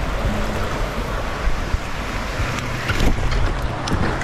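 Steady rushing of a river's flowing water, mixed with wind buffeting the microphone. A few light clicks and rustles come in the second half.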